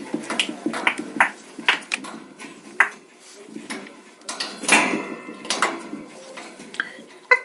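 Birds calling: a quick series of short, sharp calls, about two a second, with a few longer, drawn-out calls around the middle.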